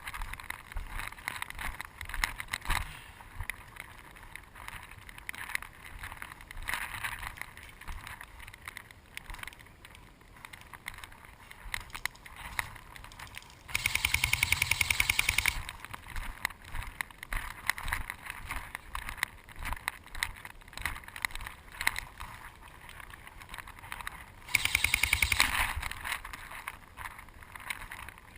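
Airsoft electric gun firing two full-auto bursts of rapid, evenly spaced shots, each about two seconds long, one about halfway through and one near the end. Between the bursts, scattered knocks and rustling.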